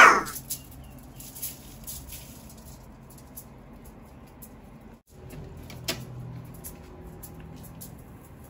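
Aluminium foil crinkling and crackling lightly under a cat's paws as it walks across sheets of foil, with a short loud meow right at the start.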